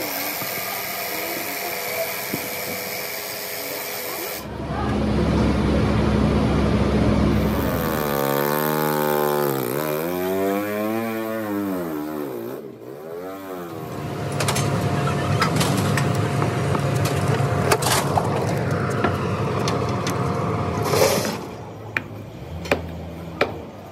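Workshop machinery noise in several abrupt cuts. A steady hum comes first, then a pitched sound that falls and then rises and falls again, then clatter with sharp clicks near the end.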